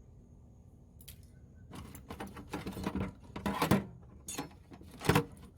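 Items being handled and moved about in a toolbox drawer. After a quiet first second comes a run of irregular clatters, rustles and scrapes, with a sharp knock near the end.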